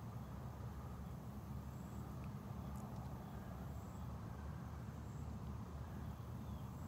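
Faint outdoor ambience: a steady low rumble with a few brief, faint high chirps.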